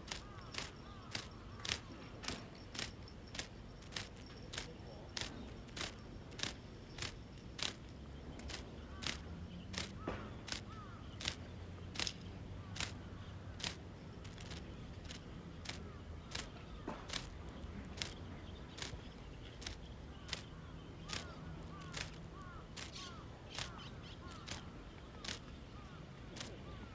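Sharp, evenly spaced clicks, about two a second, from the fishing tackle as a jig sabiki rig is worked on a spinning rod and reel. A faint low hum sits under the clicks through the middle of the stretch.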